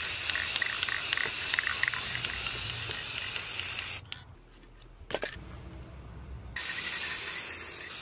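Aerosol can of Rust-Oleum gold spray paint spraying: one long spray of about four seconds, a brief puff about a second later, then another long spray starting about two and a half seconds before the end.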